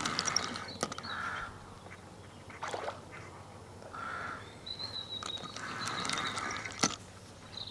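Fixed-spool reel being wound in short bursts with a few clicks as a hooked tench is played on a float rod, with bird calls in the background, including a thin high whistle about two-thirds of the way through.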